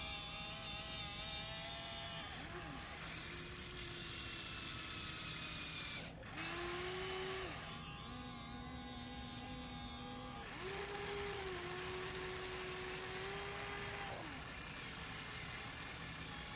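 Huina alloy RC excavator's small electric motors whining as the boom, arm and bucket move. The pitch steps up and down several times as one motion stops and another starts, over a steady high hiss.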